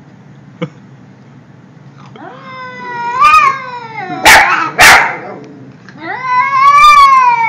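A cat yowling at a looming stuffed toy, its two long drawn-out calls each rising and then falling in pitch. Between them come two short, sharp hisses about half a second apart: a defensive threat display.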